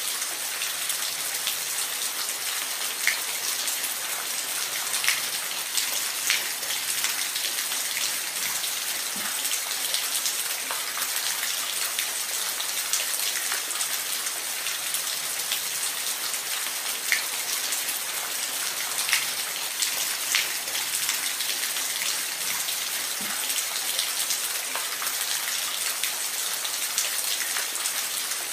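Steady rain falling, a constant hiss with scattered louder drops ticking on a surface every second or so.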